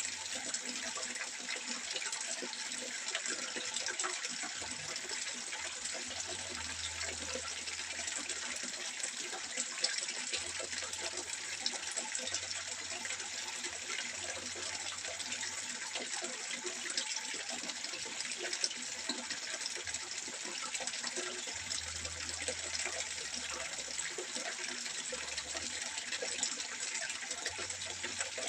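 Water trickling steadily into a fish pond, with small splashy ticks scattered through it.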